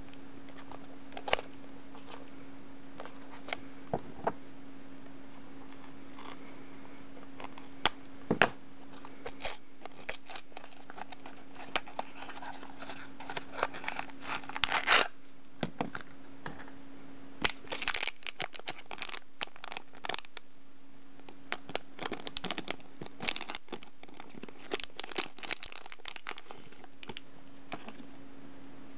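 A small cardboard blind box being opened by hand: packaging scraped, torn and crinkled, with sharp clicks and rustles coming in bursts, busiest through the middle. A steady low hum runs underneath.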